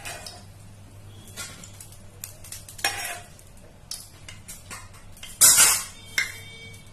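Steel ladle clinking and scraping against a kadai of hot frying oil, with the oil sizzling; a louder metallic clatter about five and a half seconds in.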